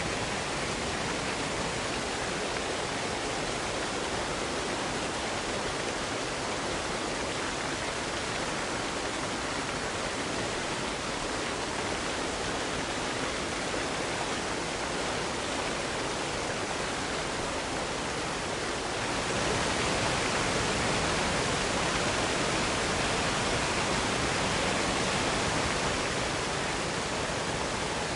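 Waterfall: a steady rush of falling water. About two-thirds of the way in it swells louder and brighter for several seconds, then settles back.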